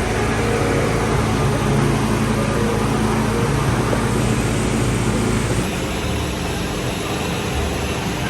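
Steady road and engine noise of a moving car, with a low hum that shifts slightly about six seconds in.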